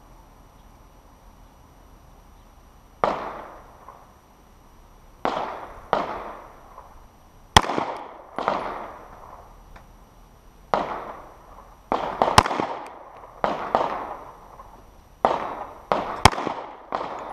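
Three sharp cracks from an HK P30 LEM 9mm pistol, about four to five seconds apart: slow, aimed fire. Around them, about a dozen duller gunshots from other shooters on the range, each trailing off in a rolling echo.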